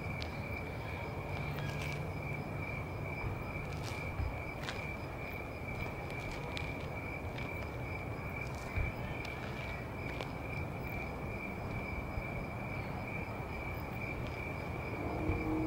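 Night insects, crickets, trilling in one steady high continuous tone over a low background rumble, with a few faint clicks. A low hum comes in near the end.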